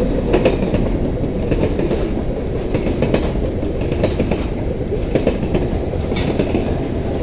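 Freight train cars rolling past close by: a steady rumble of steel wheels on the rails with scattered clicks over the rail joints.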